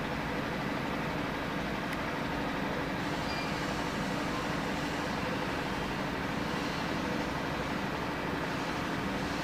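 Steady background noise: a low rumble with hiss and faint hum, even throughout, with no distinct events.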